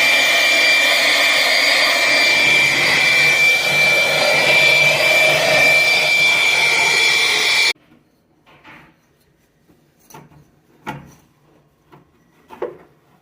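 A motor-driven cleaning tool running steadily with a high whine as the lint-clogged condenser coils are cleaned. It cuts off suddenly about eight seconds in, leaving a few faint knocks and clicks.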